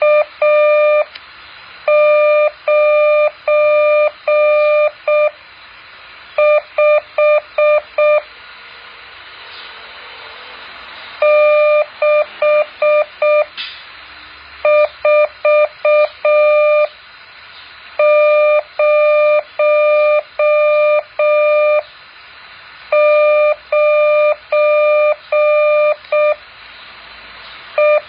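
Morse code practice tone: a single steady beep keyed on and off in short dots and longer dashes, sent in groups of characters with pauses of about a second between them, over a faint hiss.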